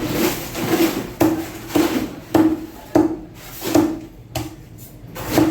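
Knife or cleaver chopping fish on a wooden cutting block: a series of about eight sharp chops, roughly one every half second to second.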